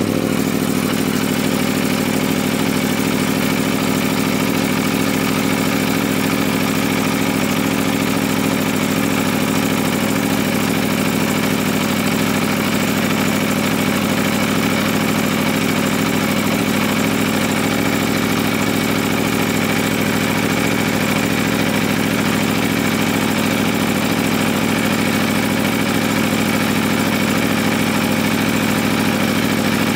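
Aprilia Tuono V4 1100 Factory's V4 engine idling steadily through its stock exhaust.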